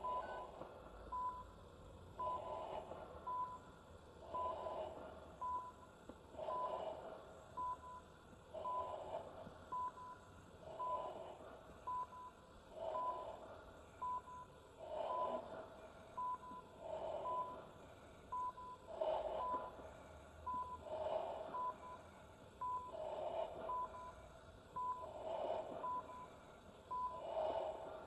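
Short high electronic beeps repeating about once a second, over a duller sound that swells and fades about every two seconds.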